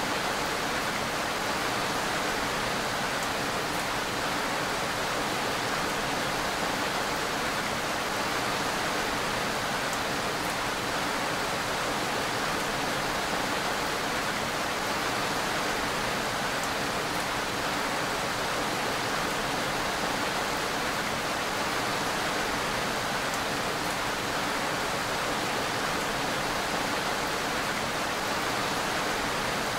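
Steady, dense rainfall: an even, unbroken hiss with a few faint drop ticks here and there.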